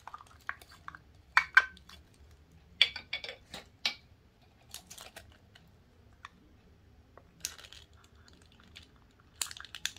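Scattered sharp clicks and taps of a small hard plastic snack tub being handled, its flip-top lid clicking, with a short dry rustle as fingers dig into the dried shredded green papaya inside.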